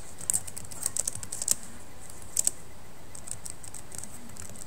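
Typing on a computer keyboard: irregular key clicks, several in quick runs in the first two seconds and a pair about two and a half seconds in, then only a few, over a steady hiss.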